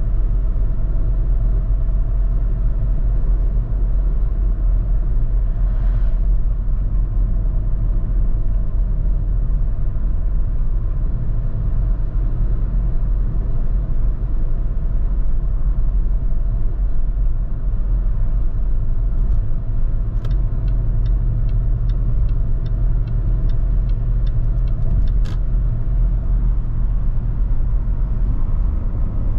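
Steady low rumble of an RV being driven, engine and road noise together. About twenty seconds in comes a run of evenly spaced ticks, two or three a second, lasting about five seconds.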